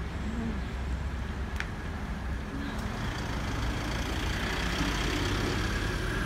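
Engine of a small light truck running as it turns and drives past close by, over steady road-traffic rumble that grows louder near the end.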